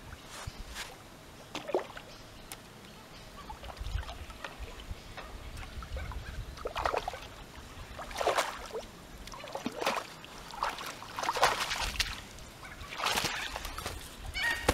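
A hooked common carp splashing and thrashing at the water's surface beside a landing net, in irregular splashes that come more often in the second half. A louder burst of splashing near the end as the fish is lifted out in the net.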